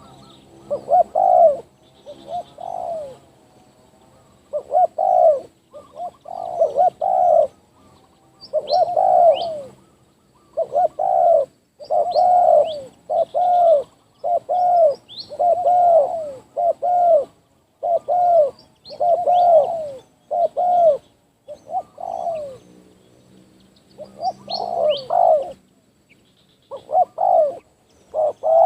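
Spotted doves cooing in repeated rounded phrases, a loud low coo call given over and over in short groups. A few high thin chirps from another small bird come in between.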